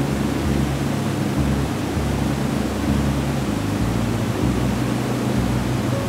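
A steady, even rush of noise, with low sustained notes of calm background music underneath that change every second or so.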